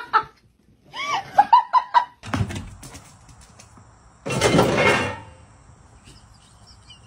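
A loud thunk and clatter on the metal hull of an aluminium jon boat, lasting about a second, a little past the middle, as a dog moves about in the boat. Before it, a brief voice.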